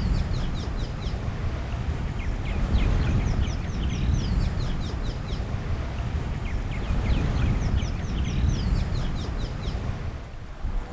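Birds calling in three bouts of rapid, short falling chirps, over a steady low rumble.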